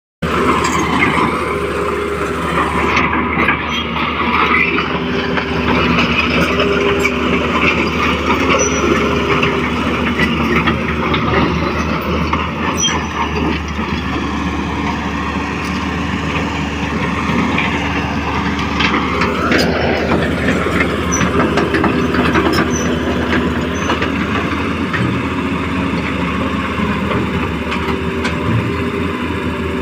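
Electric motors and plastic gearboxes of a Huina 1535 RC excavator whining steadily as it digs, the pitch of the drive tones shifting as different functions run, with a quick rising whine about twenty seconds in.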